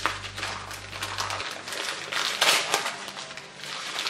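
Wrapping paper crinkling and rustling as a gift is unwrapped by hand, in irregular crackles that are loudest about two and a half seconds in.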